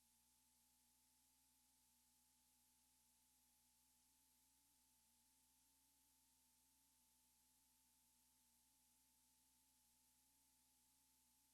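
Near silence: only a very faint, steady hiss and hum from the recording's noise floor.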